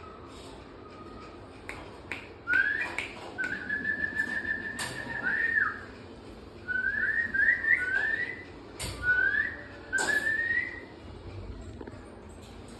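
Human whistling in clean high notes: a long held note, then several short rising notes, as if calling a puppy. A few sharp knocks sound in between.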